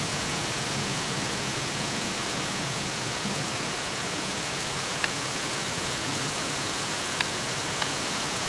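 Steady, even hiss of noise, like falling rain, with three faint ticks in the second half.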